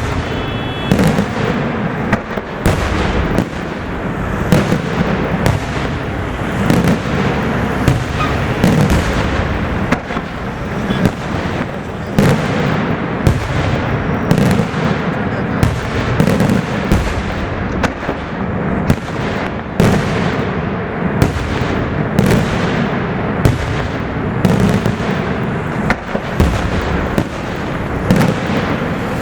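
Fireworks display in full barrage: shells bursting in quick succession, several sharp bangs a second over a continuous din of explosions, without a break.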